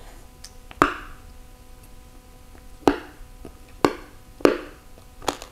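Close-up crunching of a person chewing the stalk of a salted cà xỉu shellfish with the mouth closed: five separate crisp crunches, the loudest about a second in and the rest spread through the second half. The stalk is very crunchy.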